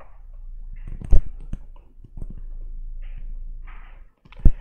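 A few sharp clicks and light thumps from a computer mouse on a desk, the loudest about a second in and again near the end, with faint rustling between.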